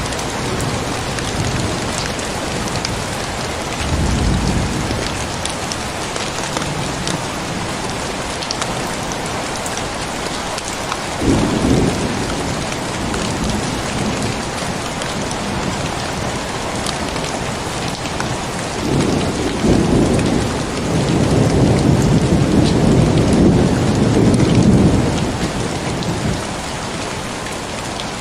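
Heavy rain falling steadily, with drops ticking, during a thunderstorm. Thunder rumbles about four seconds in and again near twelve seconds, then a long rolling rumble runs from about nineteen to twenty-five seconds. The rain cuts in abruptly at the very start.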